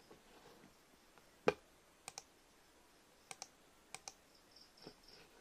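Computer mouse clicks: one sharp single click, then three quick double-clicks spaced about a second apart.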